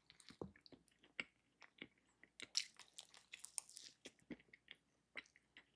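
Faint, close-miked chewing and mouth noises from someone eating a soft Cinnabon cinnamon roll: scattered small wet clicks and smacks, busiest in the middle.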